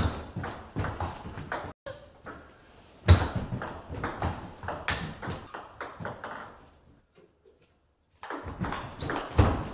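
Table tennis ball clicking sharply off bats and table in quick rallies, several hits a second. The clicks stop for about a second near the end, then resume.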